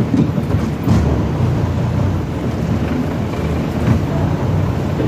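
Truck engine running with a steady low rumble, heard from inside the cab with the side window open, and a couple of brief knocks about a second in and near four seconds.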